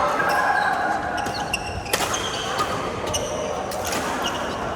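Badminton rally on an indoor court: sharp racket strikes on the shuttlecock, the clearest about two seconds in and near the end, and court shoes squeaking on the floor.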